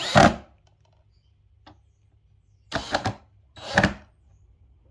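Handling noise from taking apart a Sony SS-A301 speaker to get the tweeter out: a loud clatter at the start, then two more bursts of knocking and scraping about three and four seconds in.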